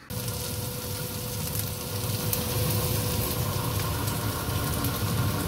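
Doenjang jjigae boiling in a stainless pot on a gas stove: a steady hiss with light crackling over a low rumble.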